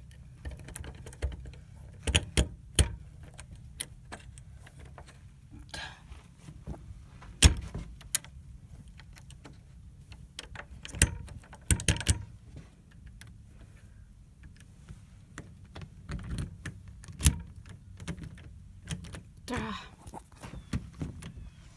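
A bunch of keys jangling, with scattered sharp clicks and knocks from handling them.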